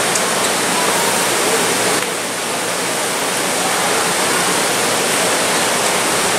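Steady, loud rush of running water, dipping a little about two seconds in.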